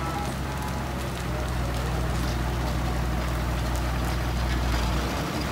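Heavy diesel water tanker truck driving slowly past, its engine running steadily at low revs with a deep, even drone.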